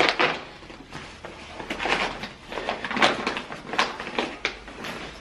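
Soft plastic water bag and nylon fabric rustling as they are handled and stuffed into a backpack, a string of uneven scrunches and rustles.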